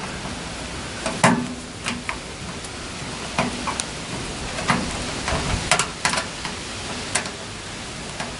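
Screwdriver working a screw on the sheet-metal terminal panel of an outdoor air-conditioning unit. It gives a string of sharp, uneven clicks and small metallic knocks, the loudest about a second in, over a steady hiss.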